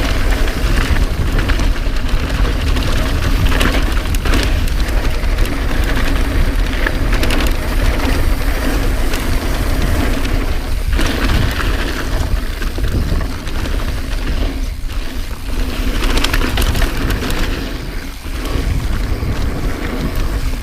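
Wind buffeting the microphone at speed, with the mountain bike's tyres rolling over dirt and rocks and its chain and frame rattling and knocking over bumps.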